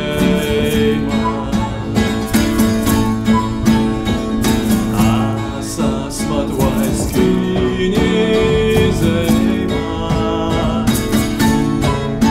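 Acoustic folk ensemble playing: two strummed acoustic guitars under a flute melody, with light hand percussion.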